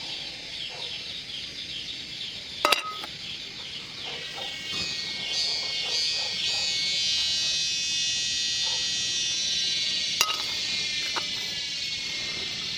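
Chickens clucking in the background, with a high whine from about four seconds in and two sharp clicks.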